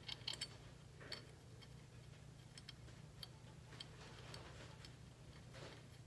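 Faint, scattered small metallic clicks as steel nuts and washers are handled and turned by hand onto the bolts of a Peerless 100 differential, over a low steady hum.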